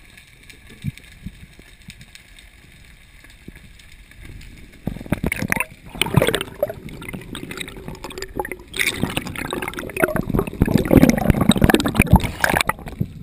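Water noise picked up by an underwater camera. For about five seconds there is only a quiet hiss with a few faint clicks, then loud, irregular gurgling and rushing water takes over and grows as the freediver comes up to the surface.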